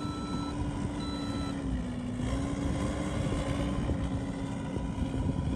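A vehicle's reversing alarm beeps twice, in half-second beeps, over an engine running steadily; the engine's pitch dips briefly about two seconds in.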